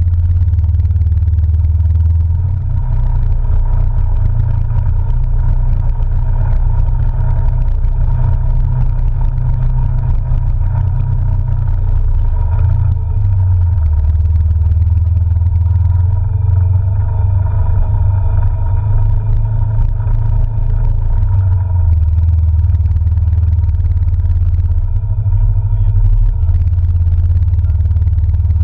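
Polaris RZR side-by-side running along a rough dirt trail, its engine giving a heavy low rumble that swells and dips with the throttle.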